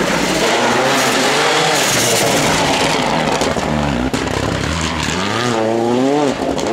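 A 2017-spec World Rally Car, with a 1.6-litre turbocharged four-cylinder engine, driven hard past at speed. The engine revs rise and fall through the gears over heavy tyre and road noise.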